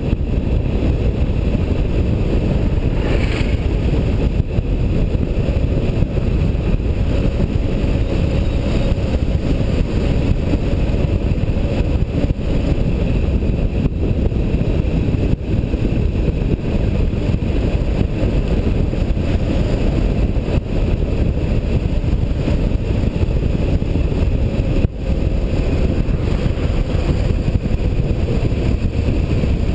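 A vehicle driving steadily along a road, heard from a camera mounted on it: even, low engine and road noise mixed with wind rumble on the microphone.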